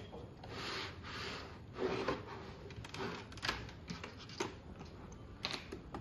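ABS plastic drawer-type fiber optic patch panel being handled and slid shut: plastic parts rubbing and sliding against each other for about the first two seconds, then scattered light clicks and knocks.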